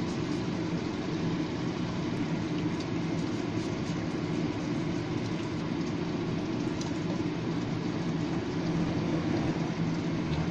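Steady low mechanical hum, with a few faint ticks.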